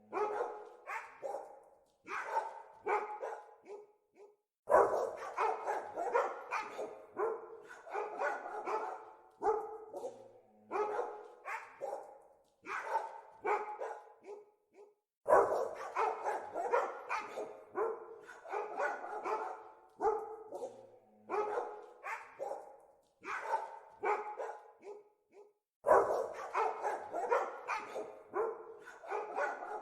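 Dogs barking in rapid runs of short, sharp barks, with a loud outburst about every ten seconds.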